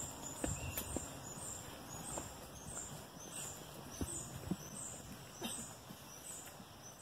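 Quiet forest ambience with a high-pitched chirp repeating evenly about three times a second, and a few faint low knocks.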